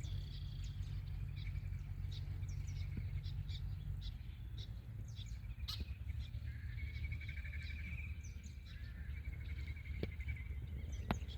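Small birds chirping and trilling, with two longer trills about halfway through, over a steady low rumble. There are two sharp clicks, one about halfway and one near the end.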